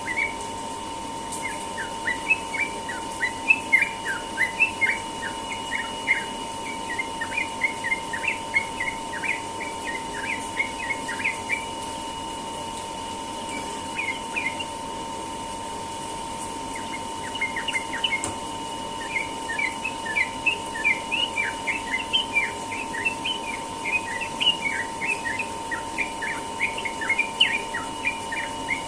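Yellow-vented bulbul (trucukan) singing a rapid, continuous run of short chattering notes, the 'ropel' style of song. It breaks off for a few seconds around the middle and then resumes.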